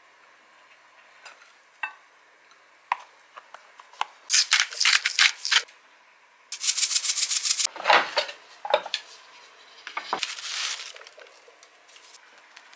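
Kitchen prep sounds: two rapid rattling spells of seasoning being shaken over rice in a glass measuring cup, then a few knocks and clinks against the glass as it is mixed.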